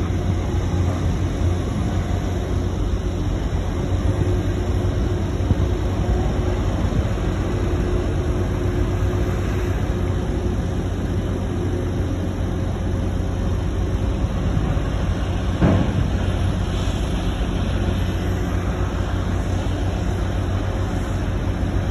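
Steady low drone of a log-loading crane's machinery running as its empty log grapple is raised and swung over the stacked logs, with one short knock about two-thirds of the way through.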